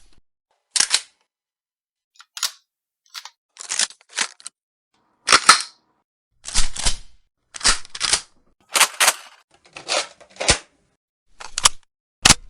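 A series of separate gun cocking and reloading sound effects, each a short metallic click-clack, often in pairs, with pauses between. Rifle actions are cocked first, then a shotgun pump, a sniper rifle bolt, and a submachine gun being cocked near the end.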